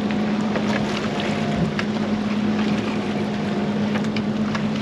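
Boat's outboard motor idling with a steady hum, with wind buffeting the microphone.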